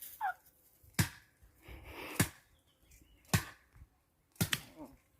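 A series of sharp knocks, about one a second, with a quick double knock near the end.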